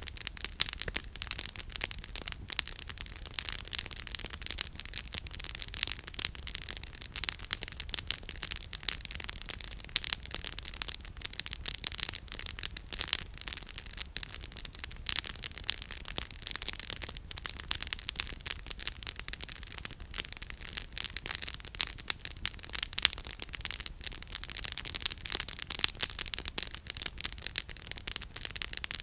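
Campfire firewood crackling and popping: a dense, irregular run of sharp snaps, with louder pops every few seconds, over a steady soft hiss.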